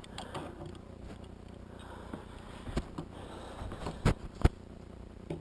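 Calipers being handled at the door hardware: quiet handling noise with a few sharp clicks, one near the middle and two close together about four seconds in.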